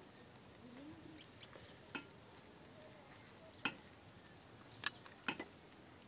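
Faint wet sounds of hands shaping clay on a spinning potter's wheel, with a handful of sharp clicks, two of them close together near the end.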